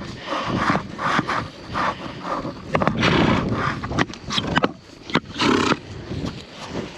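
Irregular rustling and scraping with scattered sharp clicks from a horse and rider on the move, with wind buffeting the microphone.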